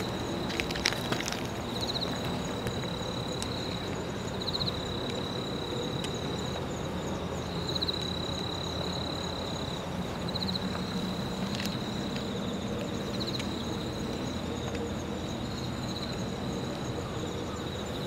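Insects trilling, one steady high-pitched trill broken by short pulsing stretches every second or two, over a steady low hum.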